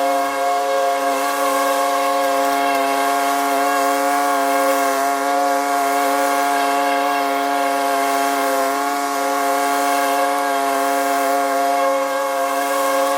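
Small engine of a lawn power tool running steadily at high speed, holding one high, unchanging pitch.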